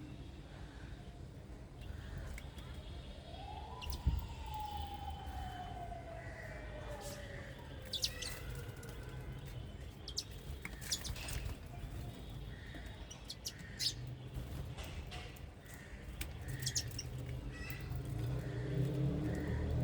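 Small birds chirping in short, scattered calls over a steady low rumble. About four seconds in, one long tone rises briefly and then slowly falls over several seconds. The rumble swells near the end.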